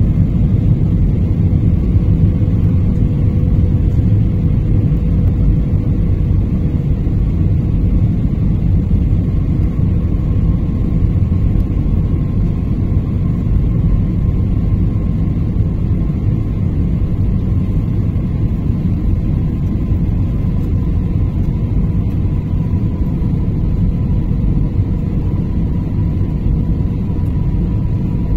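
Passenger airliner cabin noise in flight: a steady low rumble of the engines and airflow heard from inside the cabin, with a faint steady hum above it whose pitch slides slightly lower in the second half.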